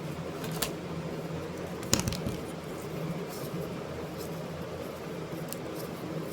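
Steady room hum and hiss with a few short clicks, the loudest about two seconds in.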